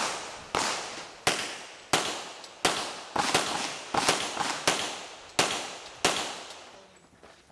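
Handgun shots in a steady string, about a dozen sharp cracks roughly half a second to three-quarters of a second apart, each with a short echo; the firing stops about six seconds in.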